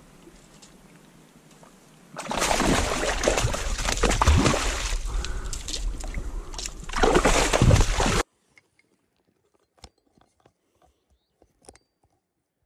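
Water splashing and sloshing loudly as a hooked silver salmon thrashes in the shallows at the bank while it is being landed by hand, for about six seconds, then cutting off abruptly. A few faint clicks follow.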